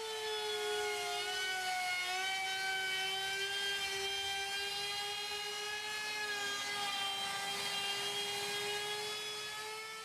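Porter-Cable laminate trim router with a 3/8-inch bottom-bearing flush trim bit running at high speed, a steady high whine as it cuts around the sink cutout in a laminate countertop. The pitch sags a little as the bit takes the load about a second in, and rises slightly near the end.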